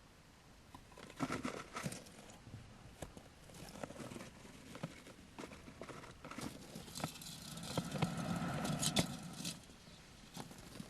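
Pet hamster moving about in its cage: scattered light clicks and scratchy rustling, busiest about seven to nine seconds in.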